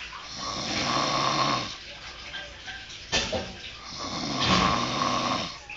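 A woman snoring heavily: two long snores a couple of seconds apart, with a brief sharp sound between them.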